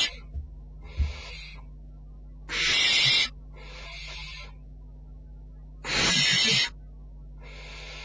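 Barn owl chick's rasping, hissing 'snore' calls, the food-begging call, each under a second long and repeated every second or two: two loud ones, a third and three-quarters of the way in, with fainter ones between. A steady low electrical hum runs underneath.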